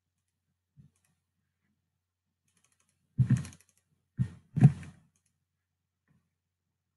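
Clicking and tapping at a computer: three short bursts of clicks between about three and five seconds in, with a faint click near the start.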